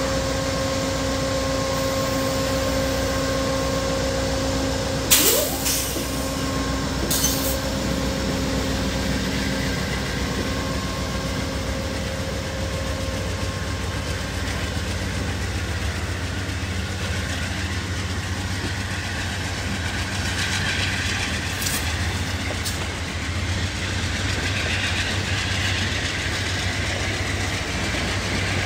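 Amtrak passenger train pulling past at low speed. The GE P42DC diesel locomotives' engines run with a steady drone that fades out about twelve seconds in, and two sharp knocks come about five and seven seconds in. After that the baggage car and double-deck Superliner coaches roll by, their wheels rumbling on the rails.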